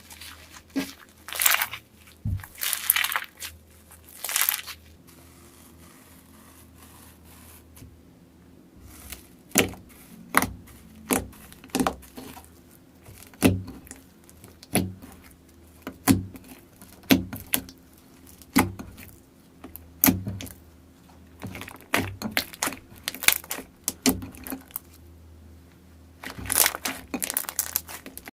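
Slime being worked by hand: crinkly crackling at first, then a run of sharp pops, a little over one a second, and more crackling near the end.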